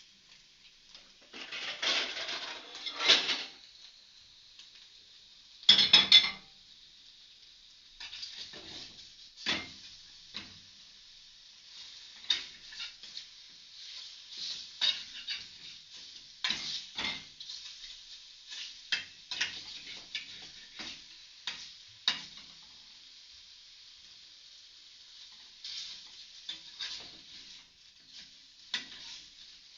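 Bacon sizzling in a frying pan with a steady hiss, while a utensil scrapes and clinks against the pan as the bacon is stirred and turned. The clatter is loudest about two to three seconds in and again around six seconds.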